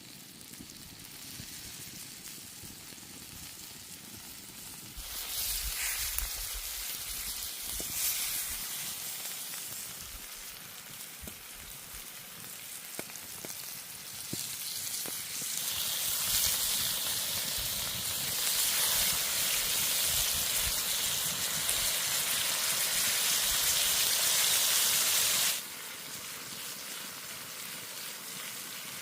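Food sizzling as it fries over the heat, a steady hiss that grows louder about five seconds in and again about halfway through, then drops off suddenly near the end.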